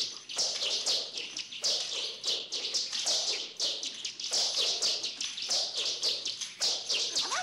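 Nunchaku swung rapidly through the air in a train of quick swishing whooshes, about two to three a second, with light taps in between.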